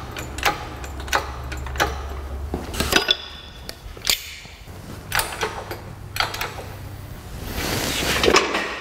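Hydraulic engine hoist and steel engine stand being worked: a run of sharp clicks roughly every half second or so as the hoist's pump handle is stroked to take the engine's weight, then scattered metal knocks at the stand's mounting head and a brief hiss near the end.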